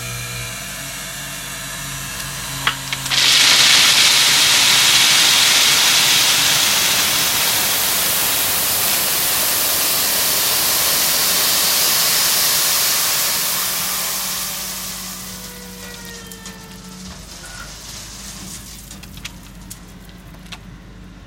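A load of gravel sliding out of a raised dump truck bed into a pit: a loud rushing hiss that starts suddenly about three seconds in and dies away over a couple of seconds near the end. A steady low hum from the truck's running engine goes on under it.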